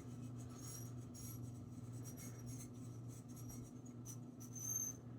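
Faint scratchy rubbing and handling sounds of a bottle and glassware, with a brief bright glassy tone near the end, over a steady low electrical hum.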